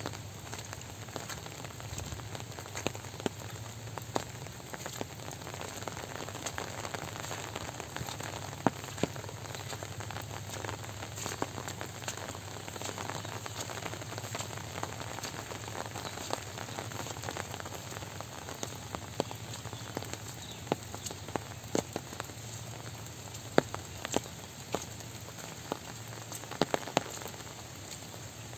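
Steady soft rain, with scattered sharp taps of single drops landing close by.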